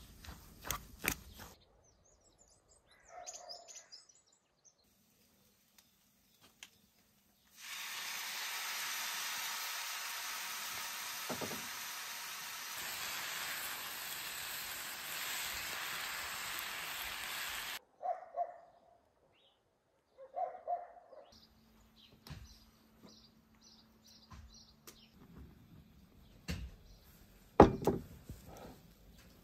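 Food sizzling steadily in a frying pan for about ten seconds, cut off suddenly. Before and after it, a fork clinks and scrapes in an enamel bowl of mashed potatoes, with a few short bird chirps in between.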